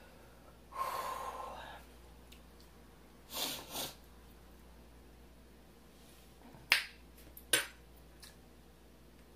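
Close-miked mouth and breath sounds: a breathy exhale about a second in, two quick sniffs a couple of seconds later, then two sharp mouth clicks near the end while food is picked from the teeth with a fingertip.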